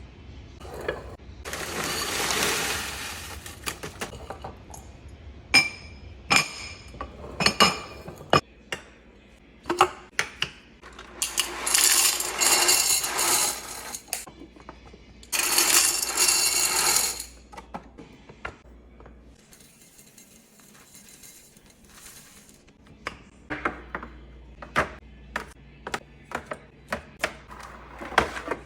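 Glass jars, bottles and food containers being handled and set down: many clinks and knocks, some ringing briefly, with three longer stretches of rustling noise over a low steady hum.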